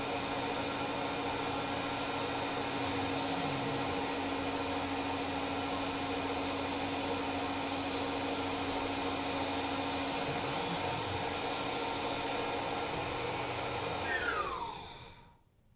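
CNC milling machine spindle running at its top speed while a 1/2-inch three-flute end mill climb-mills the outside edge of a wooden part: a steady machine sound with several steady tones. Near the end the spindle stops and winds down, its pitch falling, as the cut is finished.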